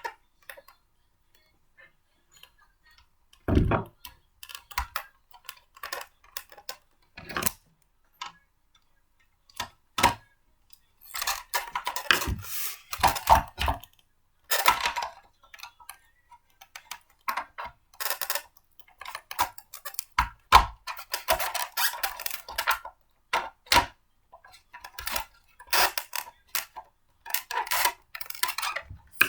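Blender parts being handled and fitted together by hand during assembly: irregular clicks, knocks and short clattering rattles, with a heavier thump about three and a half seconds in.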